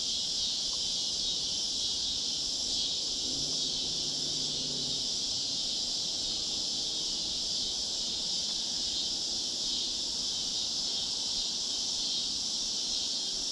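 Steady, high-pitched chorus of insects, unbroken and even.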